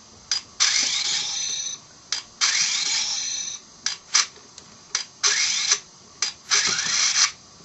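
Power Rangers in Space Battlizer toy running its action feature: four short whirring bursts of half a second to a second each, with sharp clicks in between.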